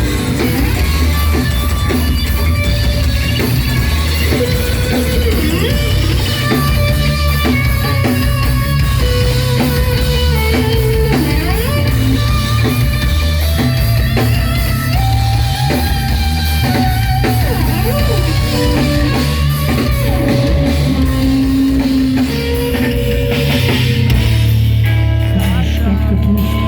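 Rock band playing an instrumental passage with guitars, bass and a drum kit, in a heavy rock style with sustained guitar melody lines.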